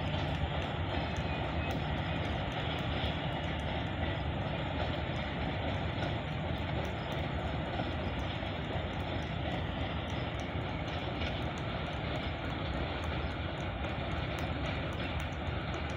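Low, steady rumble of a passenger train running away down the line, slowly fading as it recedes.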